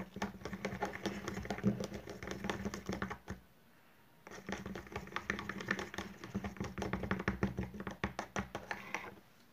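A teaspoon stirring sticky homemade glue slime in a small cup, a rapid, irregular clicking and tapping, with a brief pause about three and a half seconds in.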